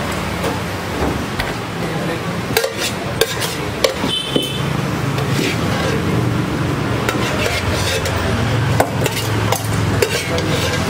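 Clinks and knocks of a stainless steel food pan being handled and tipped over onto a pizza base, with one brief metallic ring about four seconds in, over a steady low background hum.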